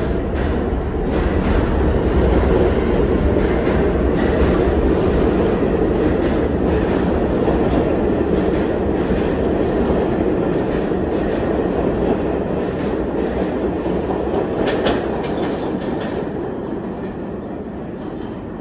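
New York City subway train pulling out of the station and passing by: a steady rumble of wheels on rail with repeated clicks over the rail joints. It fades over the last few seconds as the train draws away.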